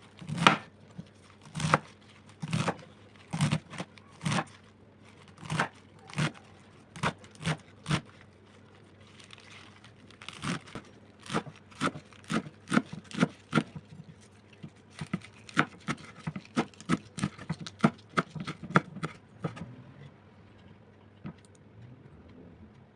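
Knife chopping fresh spinach leaves on a cutting board. Single strokes come about once a second at first, then quicker runs of two or three a second, stopping about twenty seconds in.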